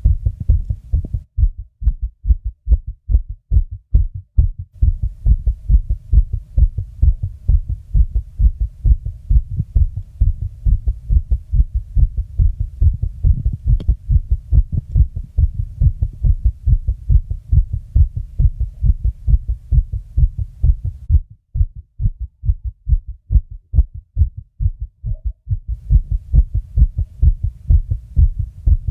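A person's fast heartbeat, recorded close up: a steady, rapid run of low thumps, several a second, that drops away briefly about three-quarters of the way through.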